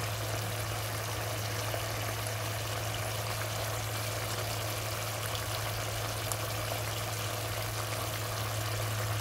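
Meatballs and pineapple chunks simmering in an oyster-sauce and pineapple-juice sauce in a pan: a steady bubbling sizzle over a constant low hum.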